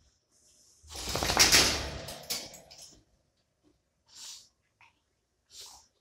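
Camera handling noise: a loud rustling, knocking burst lasting about two seconds, then two short soft hisses.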